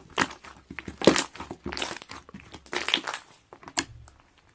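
Crinkling and rustling handling noise: a string of short, irregular scrapes and rustles.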